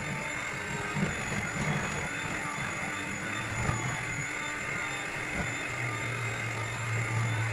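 Electric hand mixer running steadily, its beaters churning a thick fruit cake batter in a stainless steel bowl. A low steady hum comes up more strongly in the second half.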